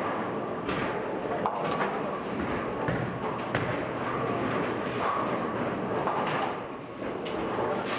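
Bowling alley noise: bowling balls rolling and pins crashing on several lanes, a series of separate clatters and knocks over a steady rumble, with faint voices.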